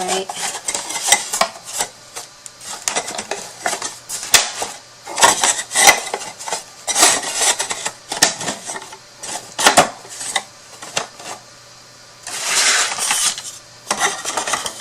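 Wooden box panels being slotted and pushed together by hand: irregular clicks, taps and clattering knocks, with a scraping rub of wood on wood about three-quarters of the way through.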